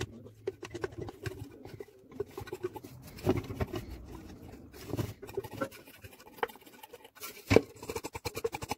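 Irregular small scrapes, rubs and clicks of hands handling the metal base of a blender jar, with one sharper click near the end.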